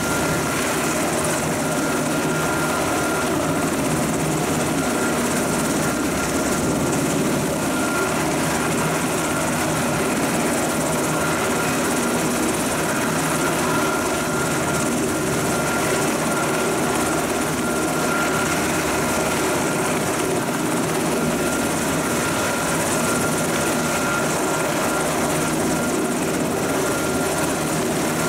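U.S. Coast Guard MH-60T Jayhawk helicopter running on the ground with its rotors turning. Its twin turboshaft engines give a steady high whine over the rotor noise.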